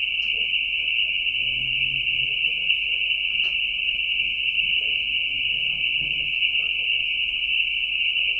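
A steady, loud, high-pitched hissing whine that holds constant throughout, with faint murmuring voices underneath.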